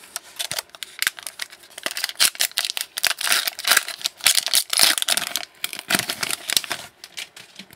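Foil trading-card pack wrapper crinkling and tearing open in a run of sharp crackles, with cards rustling in the hands.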